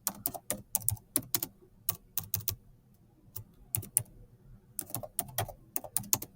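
Typing on a computer keyboard: a run of quick, irregular keystrokes with a short pause about halfway through.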